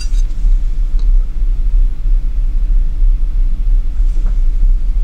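A loud, steady low rumble with a few faint ticks.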